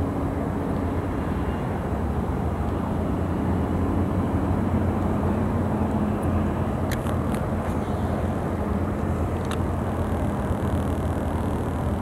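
A boat motor running with a steady low hum. A few sharp clicks stand out, three close together about seven seconds in and one more a couple of seconds later.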